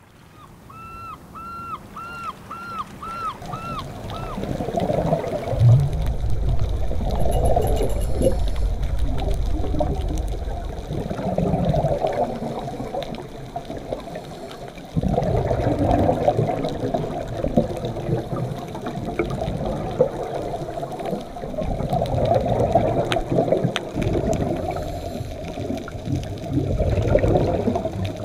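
Scuba regulator breathing heard underwater: surges of exhaled bubbles rumbling and gurgling, rising and falling every few seconds. In the first few seconds, a quick run of about seven short high chirps.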